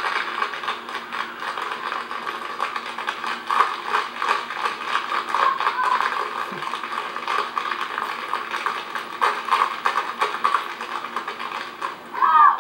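Tap shoes of a group of dancers striking a stage floor in fast, dense, rhythmic taps. A louder burst comes near the end.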